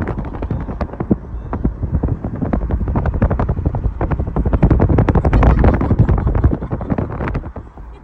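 Wind buffeting a phone's microphone at the open window of a moving car, heard as a low rumble full of rapid, irregular crackling pops. It eases off near the end as the phone comes back inside.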